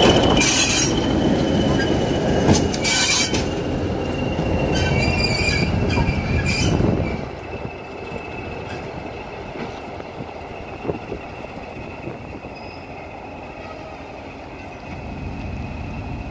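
English Electric Class 20 diesel locomotive running loud at close quarters, its engine noise broken by several short, high wheel squeals. About seven seconds in it becomes much quieter as the locomotive draws away, leaving a low rumble under a steady high whistle.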